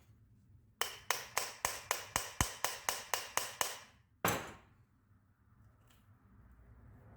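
A hammer tapping, about a dozen quick even blows at roughly four a second, then one harder blow that rings out briefly.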